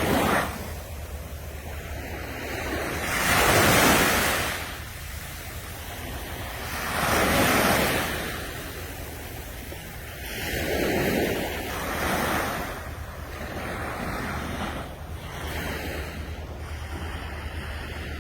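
Ocean waves breaking and washing up on a sandy beach, each swelling and fading, one every three to four seconds. Wind rumbles on the microphone underneath.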